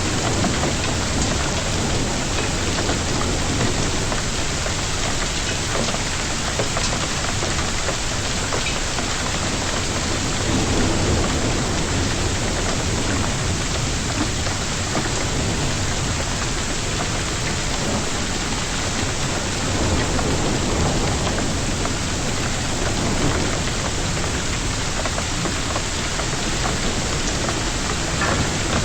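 Hailstorm with heavy rain pelting down steadily, a dense hiss with occasional sharp ticks. Low rumbling swells rise a few times.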